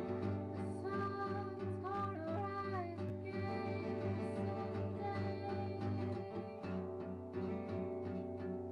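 Background music: a song with plucked strings and a sung melody.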